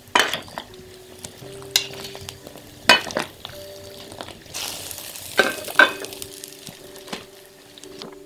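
Okra blanching in boiling water in a large iron wok, the water bubbling and splashing as a metal spatula and skimmer stir and lift the pods. Sharp clinks of metal on the wok come about six times.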